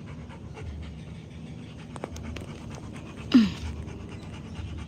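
Dog panting steadily and heavily. About three and a half seconds in comes one short, loud sound that drops in pitch.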